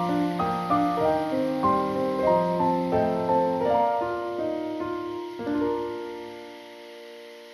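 Background piano music: a run of separate notes and chords that ends about five and a half seconds in on a held chord, which fades away near the end.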